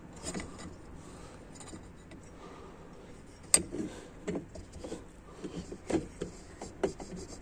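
Light handling noises of metal transmission parts on an automatic transmission's input clutch drum: a sharp click about halfway in, then several light knocks and taps as the spring-compressor guide is seated.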